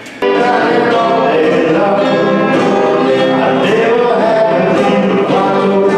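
Country-style music with several voices singing together over instruments, held notes sustained. It starts suddenly just after the beginning.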